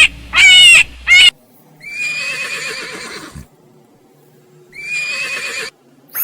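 A horse whinnying twice: a call of about a second and a half about two seconds in, then a shorter one near the end.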